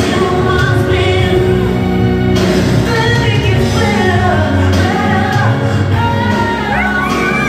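A worship song with a singing voice over a full backing track, playing steadily and loud.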